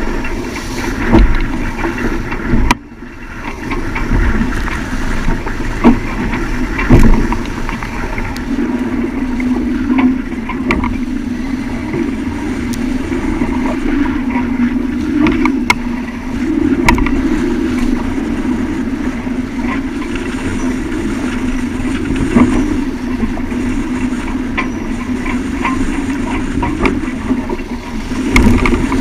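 Steady rumble and rush of a sailing yacht under way in a strong wind, with sharp knocks now and then.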